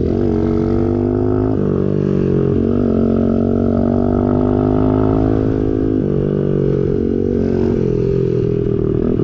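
Small single-cylinder four-stroke engine of a Chinese pit bike running on a test ride, its pitch dipping sharply at the start, then rising and stepping down and back up several times as the throttle changes. It runs smoothly and evenly on its newly fitted carburettor.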